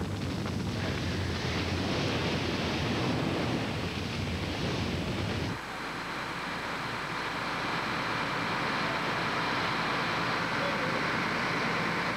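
Roar of a house fire burning, dense and rumbling, which cuts off abruptly about five and a half seconds in to a steady hiss.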